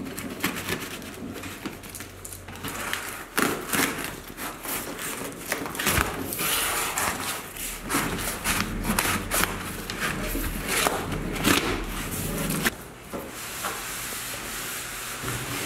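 Corrugated cardboard shipping carton being pulled open and handled by hand: irregular scraping and rustling of cardboard against cardboard, with scattered short knocks.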